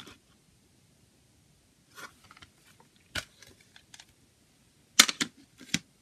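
Plastic CD jewel case being handled and snapped open: scattered short clicks and clacks of hard plastic, with a quick cluster of clicks about five seconds in.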